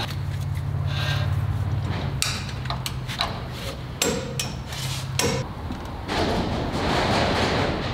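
Several sharp metallic knocks and clicks of hand tools working at a pickup truck's rear wheel hub, over a steady low hum that stops about five seconds in.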